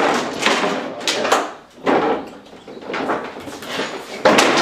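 Irregular wooden knocks, bangs and scrapes from wooden garage cabinet panels and framing being pried and knocked loose during demolition, with a louder bang near the end.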